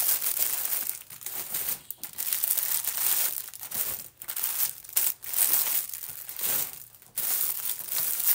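Crinkly packets of craft kits being handled and gone through, rustling and crinkling in irregular bursts with short pauses between them.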